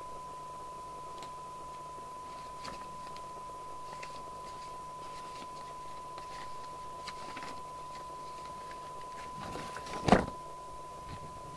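A steady single-pitch test tone from the bench equipment sounds throughout, under light clicks and rustles of the CB radio being handled while its alignment coils are sought. A sharp knock comes about ten seconds in.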